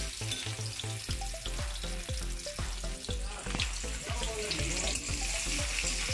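Chopped onions sizzling in hot oil in a metal wok, a spatula stirring them with repeated scrapes against the pan.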